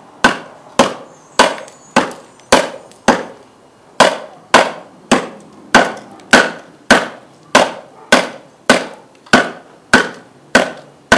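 Baton striking the spine of a khukuri blade to drive it through a piece of wood, batoning to split it: sharp knocks in a steady rhythm, a little under two a second, each with a short ring.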